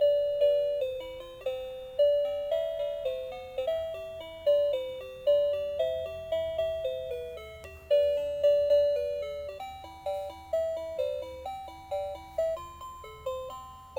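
Toy telephone playing a simple electronic melody through its small built-in speaker: a chiming tune of single notes, each fading after it is struck, in its music mode.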